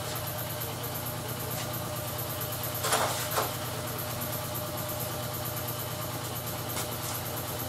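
Steady low machine hum, with a brief rustling noise about three seconds in.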